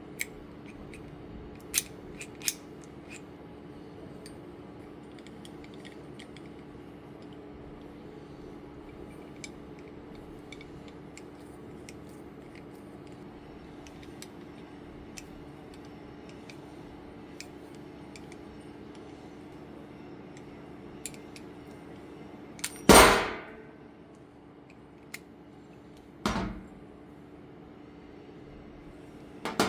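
Pipe being cut with a Knipex pipe-cutting tool: scattered clicks of the tool being handled, then a loud sharp crack with a brief ring about 23 seconds in as the cut goes through, and a smaller crack about three seconds later. A steady low hum runs underneath.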